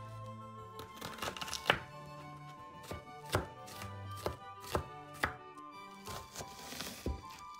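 A kitchen knife chopping on a cutting board in irregular strokes, about a dozen cuts, the loudest just under two seconds in.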